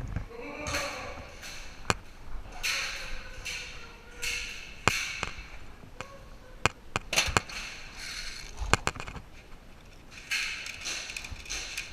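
Scattered sharp clicks and knocks at irregular intervals, with short scuffing and rustling noises between them, typical of movement and airsoft gunplay during a close-quarters game.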